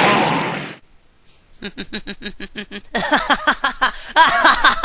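A cartoon energy-beam blast sound effect fading out within the first second. After a short gap, a fast, even run of short pitched pulses, about six a second, starts and grows busier about three seconds in.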